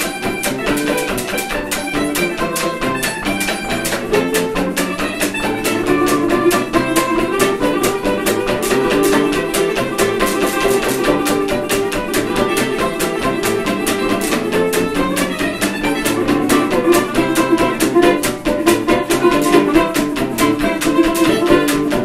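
Jug band playing a rag live: banjo, guitar and mandolin strummed in a steady rhythm, with a sustained melody line over the top.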